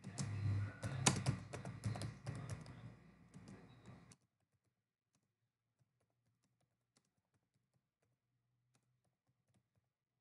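Computer keyboard typing: quick, irregular key clicks for about four seconds, then the sound cuts off abruptly, leaving only faint scattered clicks.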